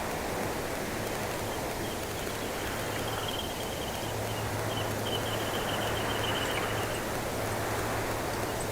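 Wind rushing through a cypress bush as a steady noise, with a bird singing a rapid run of short, high repeated notes through the middle. A faint low steady hum sits underneath.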